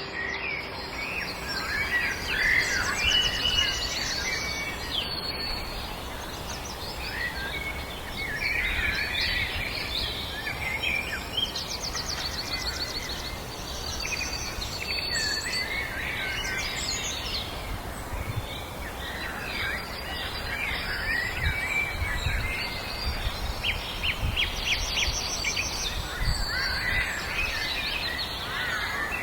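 Several songbirds singing at once, overlapping chirps and fast trills throughout, over a steady low rumble.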